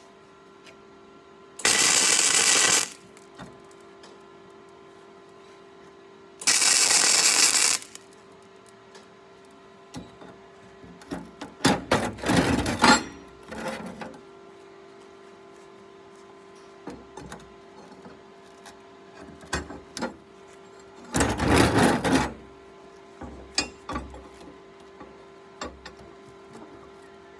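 MIG welder laying short tack welds: four bursts of crackling, sputtering arc of about a second each, the third one broken up. A steady hum runs underneath, and small metal clinks and clanks come between the welds as steel pieces are handled.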